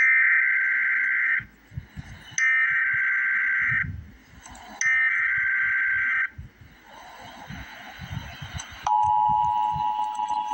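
Emergency Alert System SAME header: three bursts of high-pitched buzzing data tones, each about a second and a half long, with a short pause between them. About nine seconds in, the steady two-tone EAS attention signal starts.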